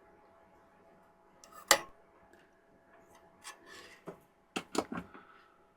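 Small tools and parts being handled on a workbench after a soldering job: a sharp click about two seconds in, a few lighter taps, then a quick run of clicks near the end, over a faint steady hum.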